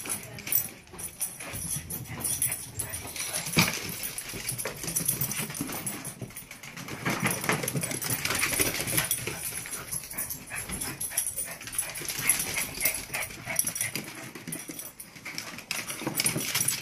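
Two small puppies play-fighting: short dog vocalisations mixed with quick clicks and scuffles of paws on a wooden floor.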